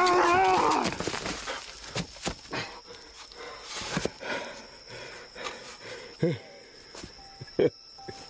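A man grunting and breathing with effort as he pries loose and lifts a carved stone, with scattered knocks and scrapes of stone and debris. A few short grunts stand out near the end.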